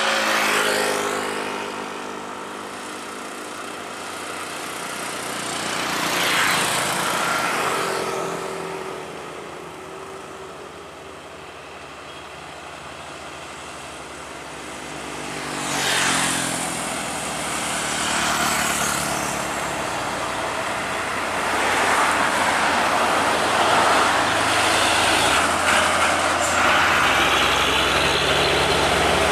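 Diesel trucks pulling up a highway grade, with motorcycles, passing close one after another: each pass swells and fades, and the traffic grows louder and steadier near the end.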